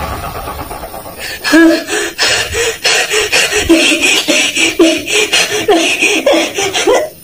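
A high-pitched voice laughing in a long run of short pulses, about three a second, starting a little over a second in after a fading rumble and stopping abruptly near the end.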